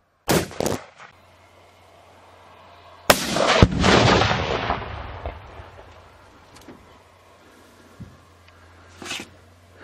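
A rifle shot, two sharp cracks close together, then about three seconds later the heavier boom of 5 lbs of Tannerite detonating inside a round hay bale downrange, rolling away for two or three seconds.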